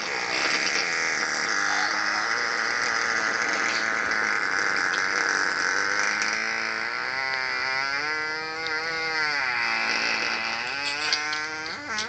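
A long, drawn-out buzzing fart. It is rough at first, then takes on a clearer pitch that wavers up and down through the second half.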